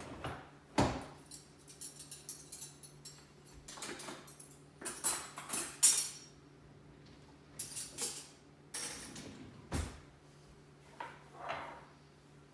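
Dishes and cutlery clinking and clattering as they are lifted out of a dishwasher and put away, with a run of sharp clatters loudest about six seconds in. A low steady hum runs underneath.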